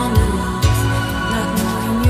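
Synth-pop recording playing: sustained synthesizer chords over a steady drum beat, with a kick drum about every half second.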